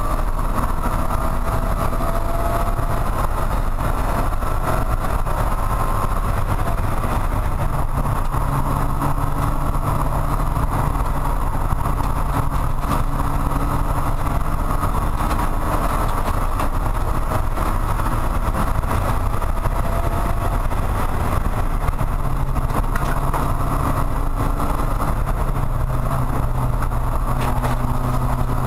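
Porsche 944 Spec race car's four-cylinder engine running under load at track speed, heard from inside the cockpit. The engine note is steady with slow rises and falls in pitch as speed changes.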